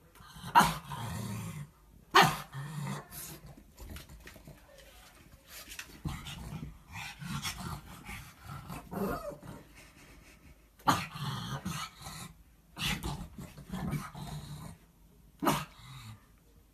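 Pug barking and growling. Sharp barks stand out about half a second and two seconds in, and again near eleven and fifteen seconds, with lower grumbling between them.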